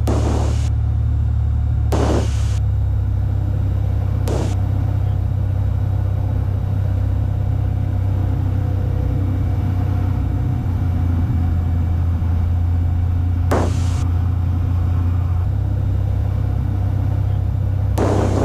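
Cessna 182 Skylane's engine and propeller droning steadily in the cabin at reduced power on approach to land, with the prop control set full forward. A few short bursts of hiss cut in now and then.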